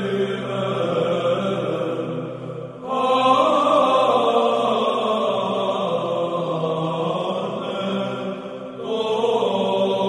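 Byzantine chant: a sung melodic line held over a steady low drone, in long phrases with short breaks about three seconds in and again near the end.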